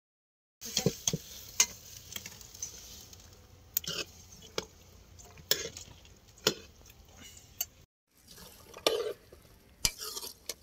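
Steel ladle stirring and scraping chunks of potato and green peas around a metal karahi, with sharp irregular knocks and scrapes of the ladle on the pan over a faint steady hiss.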